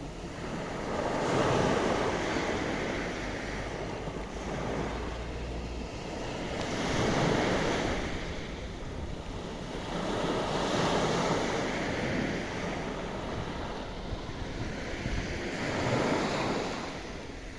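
Sea waves breaking on the shore, a steady wash of surf that swells four times, roughly every four to five seconds.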